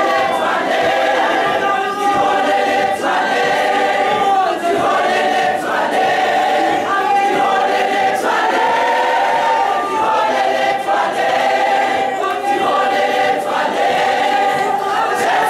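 Large choir of women singing in harmony, holding chords that change every second or so.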